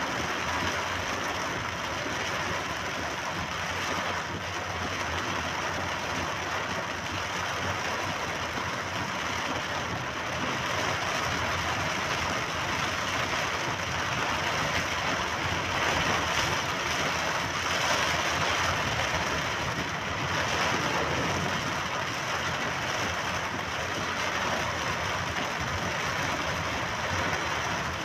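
Car driving on a wet road in rain, heard from inside the cabin: a steady hiss of tyres on wet asphalt over the engine's low hum.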